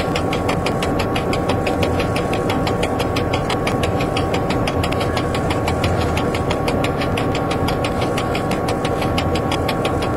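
Train engine running steadily, heard inside the driver's cab as the train draws slowly into a station, with a fast regular ticking of about five ticks a second. A hiss of air cuts in right at the end.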